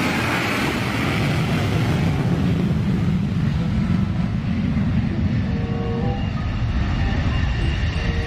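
Jet aircraft engine sound effect: a steady low rumble with a rushing hiss that eases off after about two seconds.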